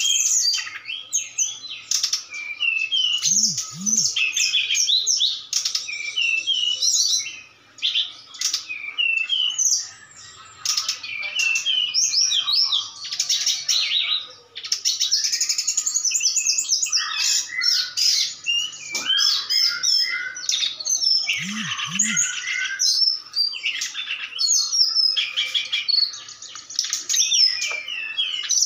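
Caged brown-chested jungle flycatcher singing back against another caged flycatcher, a tledekan gunung: fast, busy runs of high chirps and whistled notes, almost without a break, with brief lulls about eight and fourteen seconds in.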